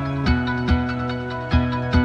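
Background music: sustained notes with new notes sounding at an even pace, about two or three a second.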